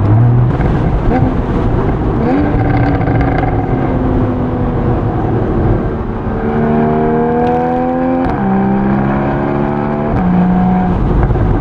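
Porsche Boxster GTS 981's 3.4-litre flat-six exhaust as the car accelerates through the gears. The engine note swells and eases, then climbs steadily, with a sharp drop in pitch at each of two upshifts, one about eight seconds in and one near the end.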